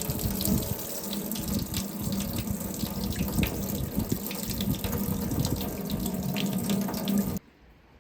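Water running hard from a tap into a sink, with a steady low hum under the rush, shut off abruptly about seven seconds in.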